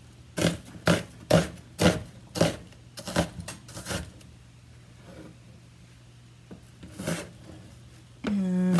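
Chef's knife chopping an onion on a cutting board: about nine sharp chops roughly two a second, a pause, then one more chop about seven seconds in. A brief hum from a voice comes near the end.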